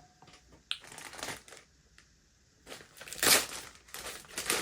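Plastic packaging crinkling and rustling as it is handled, in irregular bursts with the loudest crackle about three seconds in.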